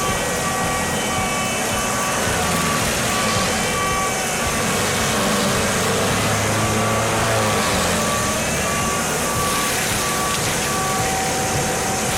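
Heavy machine's engine running with its reversing alarm beeping steadily, roughly two beeps a second; the beeping stops near the end.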